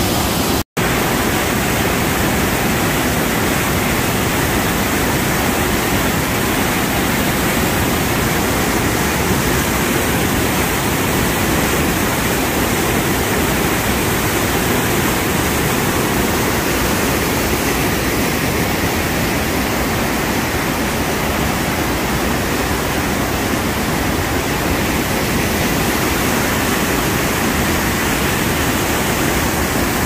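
Loud, steady rush of whitewater: the Banias stream, swollen by winter rains, pouring over boulders and small cascades. The sound cuts out for an instant just under a second in, then carries on unchanged.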